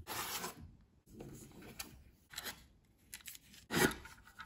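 Handling noise from a hard plastic equipment case and its foam insert being opened and touched: scattered rustles and light clicks, with a louder thump near the end.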